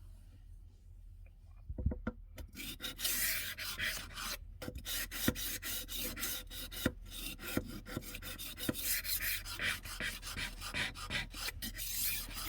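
HORL 2 rolling knife sharpener rolled back and forth along a knife blade, its disc rubbing on the steel edge in a steady rasping grind with many small clicks. It starts about two seconds in, after a quiet start.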